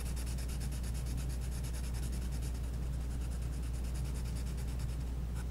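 Black permanent marker rubbing back and forth on paper as a section is coloured in: a fast, even run of scratchy strokes, several a second, over a steady low hum.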